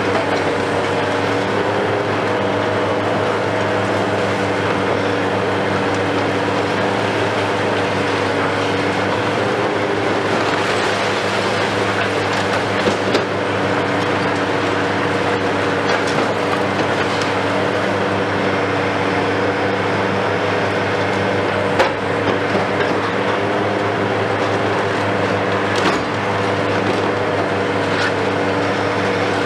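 Diesel engine and hydraulics of a Hitachi KMC 520 BTV high-reach demolition excavator running steadily under load, a constant hum with held tones. A few sharp knocks cut through it, the crusher jaw breaking concrete and debris falling, three of them in the second half.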